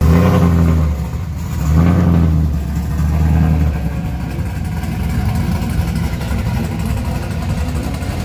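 Pickup truck engine revving in three short swells over the first few seconds, then running at a steady low rumble as the truck pulls away.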